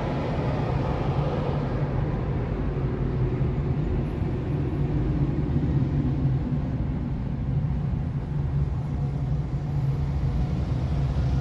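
Steady engine and road noise of a car driving slowly, heard from inside its cabin: an even low hum with no breaks.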